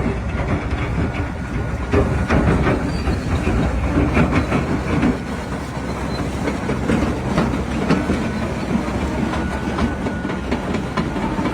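Bulldozer at work: heavy diesel engine running with steel crawler tracks clanking steadily, and a faint high squeal about eight seconds in.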